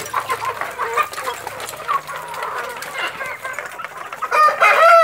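A flock of free-range chickens clucking and calling as they feed. Near the end a rooster crows loudly, the loudest sound here.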